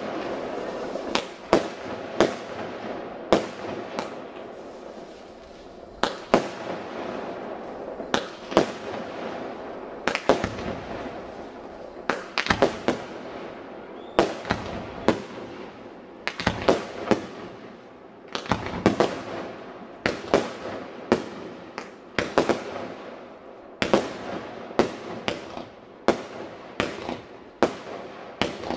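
Aerial fireworks bursting in the sky: a steady run of sharp bangs, about one to two a second and often in quick pairs, each followed by a short echo.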